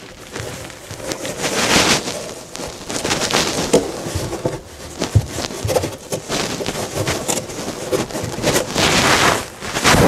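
A fabric-covered cardboard lining panel scraping and rubbing against the lined sides of a wooden trunk as it is pushed down into place by hand, with a few light knocks. The panel is meant to be a tight fit.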